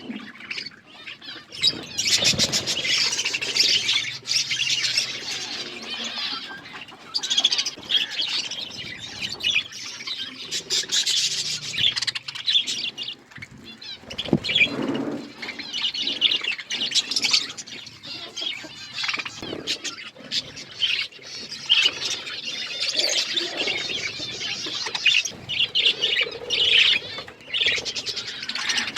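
A flock of budgerigars chirping and chattering all together without pause.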